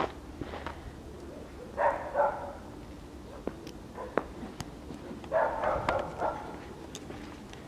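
An 8-week-old Siberian husky puppy barking in two short bursts, one about two seconds in and a longer one past five seconds.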